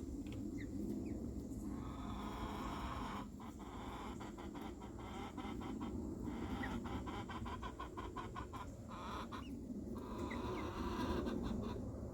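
Young hens, about five weeks old, clucking with a few short high cheeps, over scratching and rustling in their coop.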